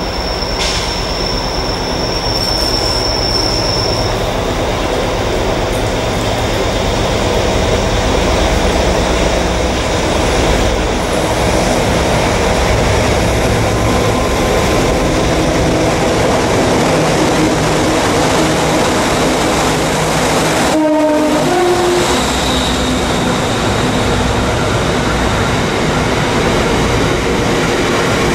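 Class 60 diesel-electric locomotive running under power as it approaches and passes, then its train of loaded hopper wagons rumbling and clattering by.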